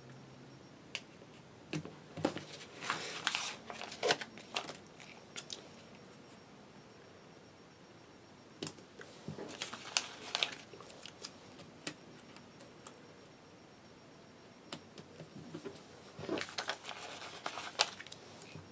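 Paper rustling and light clicks from hands handling a sheet of planner stickers and pressing stickers onto planner pages, in three short spells.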